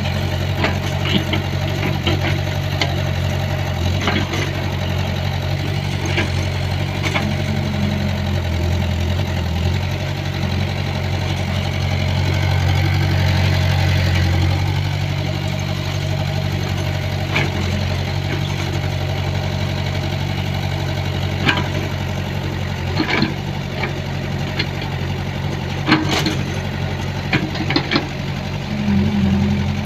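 Excavator's diesel engine running steadily, with scattered sharp knocks, most of them in the second half.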